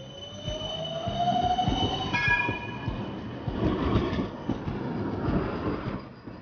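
City tram passing close by on street rails: a whine rises in pitch over the first two seconds under a steady high squeal, then the wheels rumble loudly on the track as it goes past, fading near the end.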